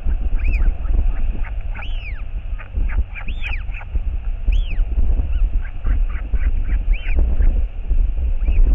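Northern royal albatross chick begging from the adult: many short, squeaky calls that rise and fall, with sharp clicks between them. Steady wind rumble on the microphone underneath.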